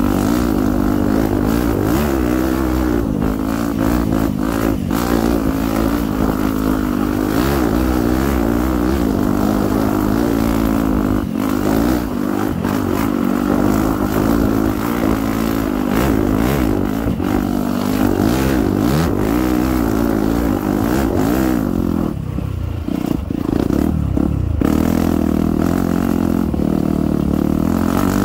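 Dirt bike engine revving up and down as the rider works the throttle along the trail. About four-fifths of the way through, the throttle comes off and the engine note drops for a couple of seconds before it picks up again.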